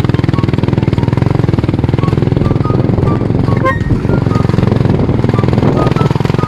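Motorcycle engine running at low speed with a rapid, even firing beat, ridden slowly over rough gravel.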